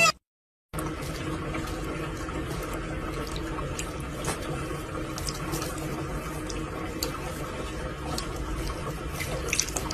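Water running steadily from a tap into a sink, with a few faint small clicks over the flow.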